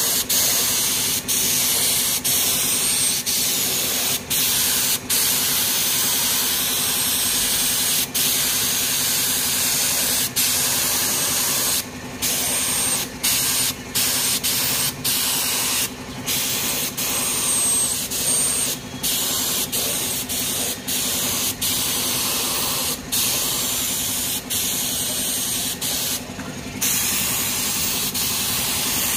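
Paint spraying onto a motorcycle alloy wheel: a loud, steady hiss of spray, cut by many short pauses as the trigger is let off and pressed again.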